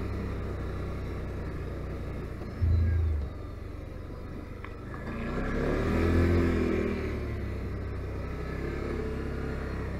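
Can-Am Outlander 570 ATV's V-twin engine running under way, revving up and easing off again around the middle. A short, loud low thump comes about two and a half seconds in.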